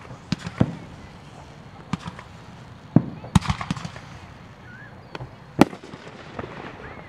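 Consumer fireworks going off: an uneven series of about ten sharp bangs and pops. The loudest come around the middle and about three-quarters of the way through.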